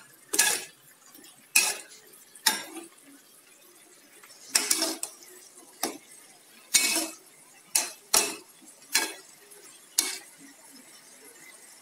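Spatula stirring beef and quail eggs in a wok: about ten short scrapes and clinks against the pan, roughly one a second, at an uneven pace.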